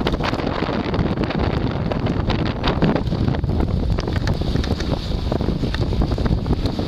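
Wind buffeting the microphone, crackling and gusting over the steady rush of a moving boat through the water.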